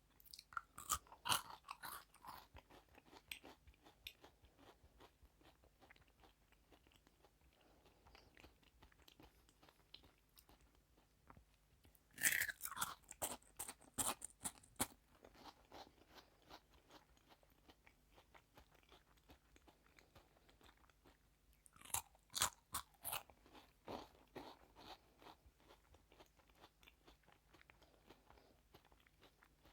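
Close-miked biting and chewing of crunchy food: three loud bursts of crunching, at the start, about 12 seconds in and about 22 seconds in, with quieter chewing between them.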